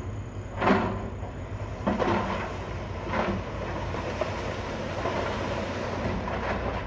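Bulldozer's diesel engine running steadily under load, with three loud clanks from its steel tracks and the stone being pushed in the first few seconds.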